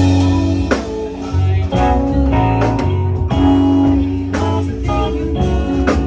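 Live rock band playing: electric guitars and keyboard hold chords over a heavy bass line, with the chord changing on a sharp band hit about once a second.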